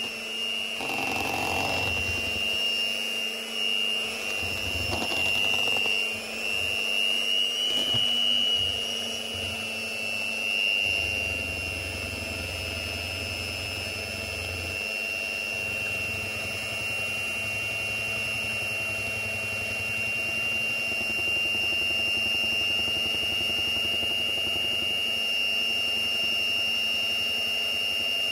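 Cookworks electric hand mixer running, its motor whining as the twin beaters whisk a thick rice-flour batter. The whine wavers and the sound dips and swells for the first ten seconds or so, then runs steady.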